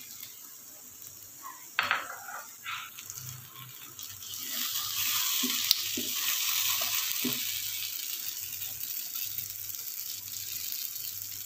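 Boiled butter beans frying in a pan of onion-tomato sauce as a wooden spatula stirs them: a short knock about two seconds in, then a steady sizzle that swells from about four seconds on, with a few soft scrapes of the spatula.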